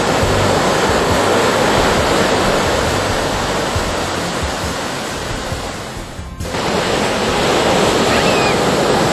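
Ocean surf breaking and washing up a sand beach: a steady, dense rush of waves that dips briefly about six seconds in, then comes back.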